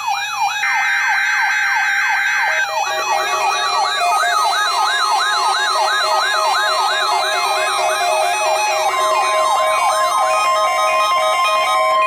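Electronic siren sweeping up and down rapidly, about three times a second, layered with several steady electronic tones.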